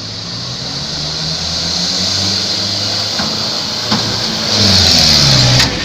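Heavily loaded truck's engine pulling hard, its pitch rising and falling as the revs change. It grows louder to a peak with a hiss near the end, then drops off suddenly.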